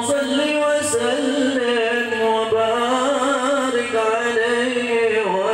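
A man singing a slow, drawn-out line of a hadroh devotional song, holding long notes that bend and waver in pitch, with a short dip near the end.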